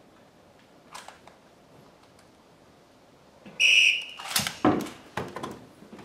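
A short, high whistle blast signalling the start of a snap-fire exposure, followed right after by several rifle shots in quick succession, about half a second apart, as the relay opens fire.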